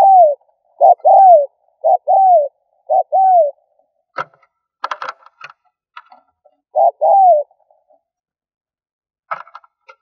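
Spotted dove cooing: a short note followed by a longer falling note, about once a second for the first three seconds or so, then once more about seven seconds in. Between these, around four to five seconds in and again near the end, come brief clusters of sharp clicks.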